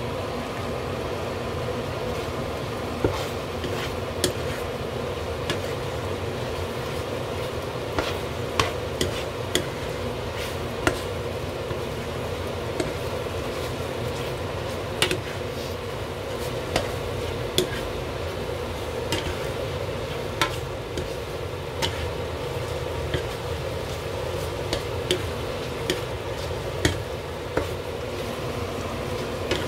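Spatula stirring tteokbokki in a frying pan of simmering sauce, with irregular light knocks of the spatula against the pan about once a second. Under it runs a steady hum from the kitchen range hood fan.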